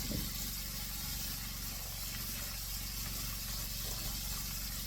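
Steady hiss of venison backstrap frying in hot grease, over a low steady hum.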